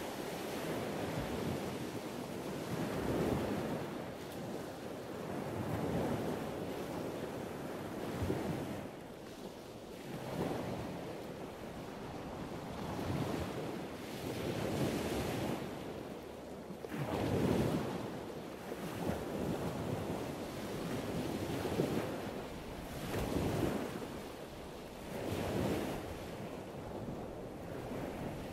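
Surf washing onto a shore, the sound swelling and fading in waves every two to three seconds.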